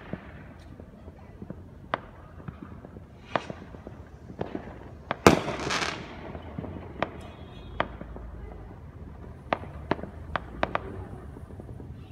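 Fireworks going off: scattered sharp bangs at uneven intervals. The loudest comes about five seconds in and trails off over about a second.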